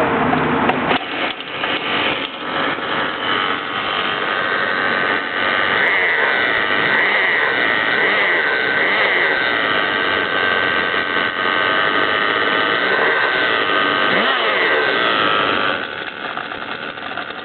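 Gas GoPed scooter's small two-stroke engine running, giving off the strange noise the owner is asking for help with. It drops in loudness near the end.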